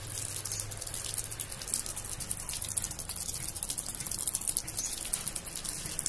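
Water pouring from a bamboo spout and splashing onto a small bamboo fountain, a steady trickle with quick irregular drips and splashes.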